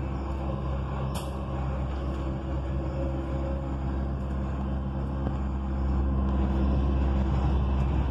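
Dubai Metro train running along its elevated track, heard from inside the carriage: a steady low rumble and hum, with one sharp click about a second in, growing louder about six seconds in.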